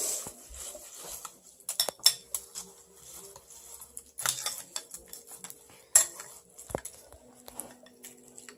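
Spoons clinking and scraping against cereal bowls, with sharp clinks scattered every second or two.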